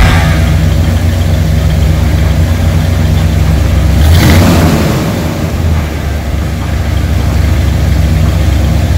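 A 1970 Oldsmobile 442's 455 V8 idling steadily, given one quick rev about four seconds in before dropping back to idle.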